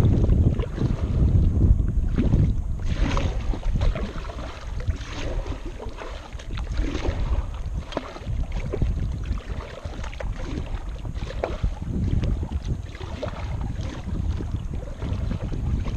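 Wind buffeting the microphone with a low, gusting rumble, while water laps and splashes against a kayak now and then.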